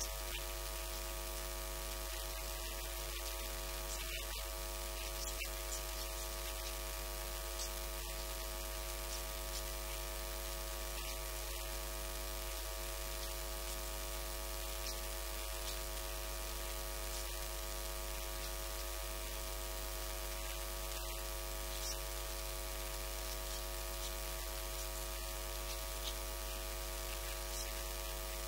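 Steady electrical mains hum with a constant hiss of static, at an even level throughout, with a few faint ticks.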